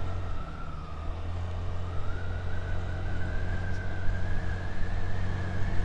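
A 2023 Honda Activa 125 scooter's single-cylinder engine pulling under acceleration, its whine rising slowly in pitch as the speed climbs toward 60 km/h and then holding, over a steady low rumble.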